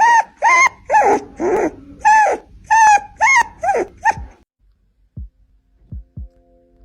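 A puppy yelping over and over in short, high-pitched cries, about two a second, which stop about four seconds in. A few faint low thuds follow.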